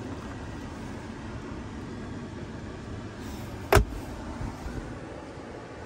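Steady low hum inside a car's cabin, with one sharp knock a little under four seconds in and a few light clicks just after it.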